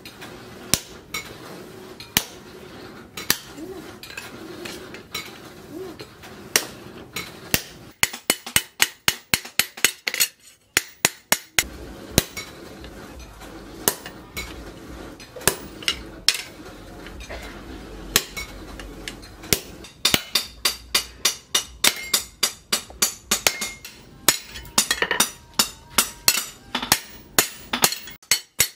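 Hand hammer striking a punch held on the hot steel of a disc-plough cleaver blank on a steel post anvil, punching a hole: a long series of sharp, ringing metal-on-metal blows, some in quick runs, others spaced apart.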